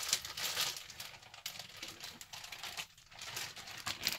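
Crinkling and rustling as packaging is handled, with irregular light clicks.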